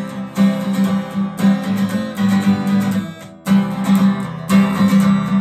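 Instrumental break in a sung worship song: a guitar strummed in a steady rhythm, with a brief drop a little past three seconds in before the strumming picks up again.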